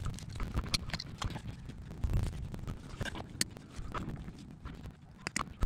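Scattered clicks, knocks and rustles, a few a second and irregular, of hands pulling twine and burlap off a tree's root ball.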